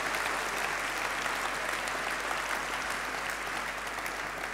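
Audience applauding steadily, slowly fading toward the end.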